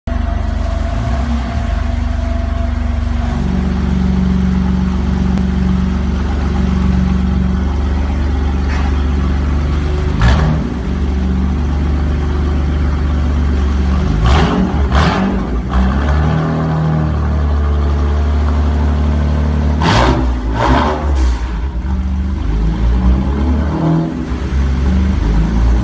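BMW F82 M4's twin-turbo straight-six running through an Armytrix valvetronic exhaust, idling with a low steady burble and blipped a few times. Brief sharp cracks come out of the exhaust about ten seconds in, twice around fifteen seconds and twice around twenty seconds.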